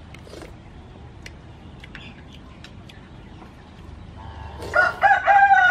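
A rooster crows about four and a half seconds in: one long, loud call that carries on past the end, over faint scattered clicks.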